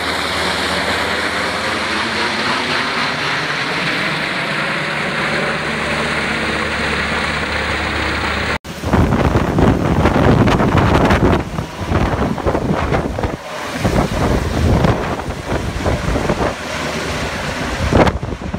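Black Hawk-type military helicopter overhead, its rotor and turbine running steadily. About halfway through, the sound cuts to heavy, gusty wind buffeting on the microphone with the helicopter close overhead.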